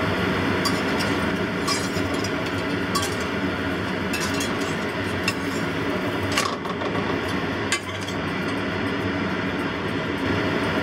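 Scallion pancake frying in oil in a stainless steel pan, a steady sizzle, with a metal spatula clinking and scraping against the pan several times as the pancake is flipped and pressed down, loudest about six seconds in.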